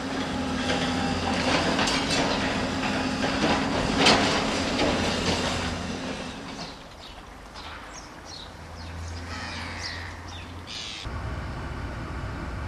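Tracked excavator's diesel engine running under load as it works demolition rubble, with grinding and scraping of broken stone and brick and a loud crunch about four seconds in. High metallic squeals follow, then the sound changes abruptly near the end to a steadier engine hum.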